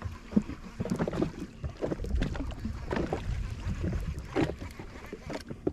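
Water slapping and knocking against a jet ski's hull in an irregular run of splashes, with wind buffeting the microphone.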